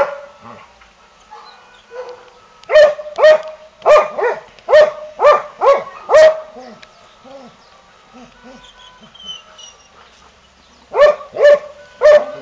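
A dog barking in quick runs: one bark at the start, about eight barks a few seconds in, a lull with a few faint lower yelps, then four more barks near the end.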